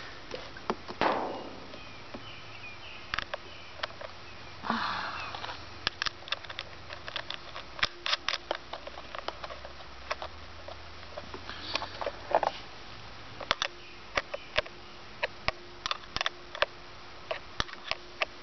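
Many small metallic clicks and taps as cable lugs, a terminal nut and a wrench are handled and tightened on a battery terminal post. There are a few short breathy rushing noises, around a second in, near five seconds and near twelve seconds.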